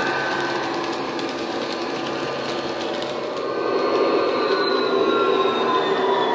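Sound decoder in a model Class 59 diesel locomotive playing an EMD two-stroke diesel engine running under way, through the model's small speaker. Several held tones glide slowly down in the second half, and the sound grows louder about four seconds in.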